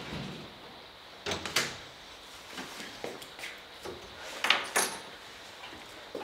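A house door being opened and shut: a few sharp knocks and rattles with pauses between, and steps on a tiled floor.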